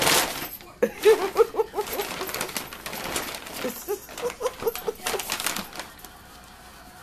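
A paper bag crinkling and tearing as two small dogs paw and bite at it, with a person laughing in short runs between the rips.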